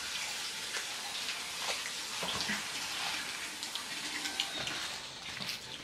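Small clicks and rustles of paper fast-food packaging being handled and food being eaten, over a steady background hiss.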